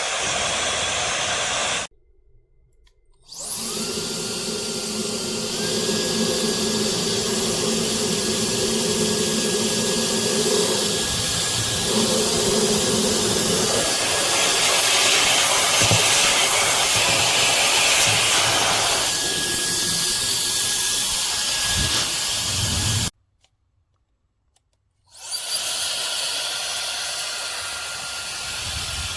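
Brushless high-speed hair dryer blowing: a steady rush of air with a thin high motor whine. It cuts off about two seconds in and starts again with a rising whine a second and a half later, then cuts off for about two seconds a little before the end and starts again.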